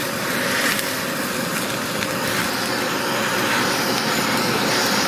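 Handheld kitchen blowtorch flame hissing steadily as it sears slices of chashu pork and onion on a bowl of ramen.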